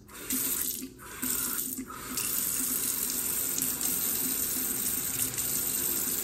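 Bathroom sink tap running into the basin. The flow breaks off briefly twice in the first two seconds, then runs steadily.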